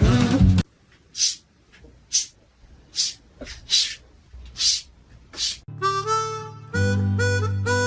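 Music with singing cuts off just under a second in. Then comes a quiet stretch with about six short hissy noises, roughly one a second. Harmonica music starts about two seconds before the end.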